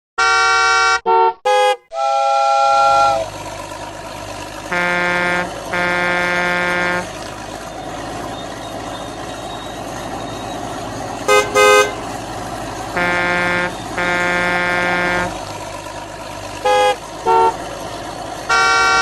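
Vehicle horn honks repeating over a steady engine-like drone: pairs of longer blasts alternating with quick double toots, several times over.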